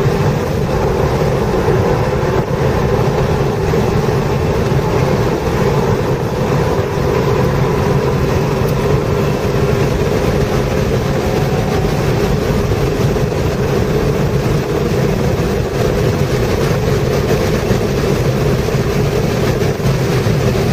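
Subaru WRX's turbocharged flat-four engine running steadily under throttle, heard from inside the cabin with tyre and wind noise at track speed.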